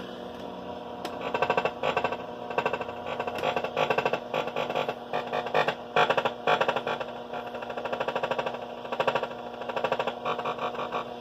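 AM radio reproducing the signal of a Bose RF remote control held against it: repeated bursts of rapid buzzing pulses as buttons are pressed, over a steady hum. The bursts show that the remote is transmitting.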